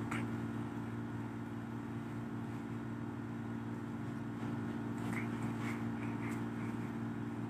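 Steady low mechanical hum, with a few faint short sounds between about five and six and a half seconds in.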